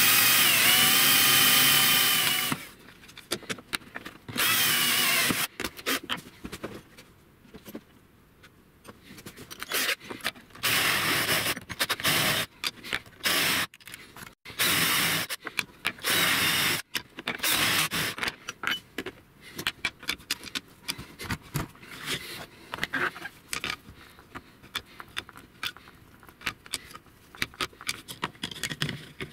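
Cordless drill boring into laminated plywood, its motor running loudly with a brief dip in pitch as the bit bites, stopping about two and a half seconds in. Short bursts of the drill follow over the next dozen seconds, then scattered clicks and scraping as the parts are handled on the bench.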